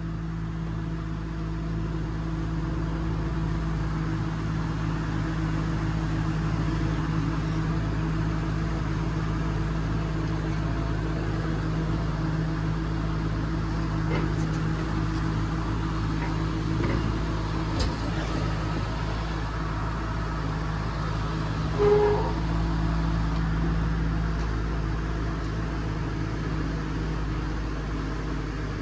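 Heavy truck's diesel engine running steadily at a constant speed during a crane lift, with a few faint knocks and one brief higher-pitched tone about three-quarters of the way through.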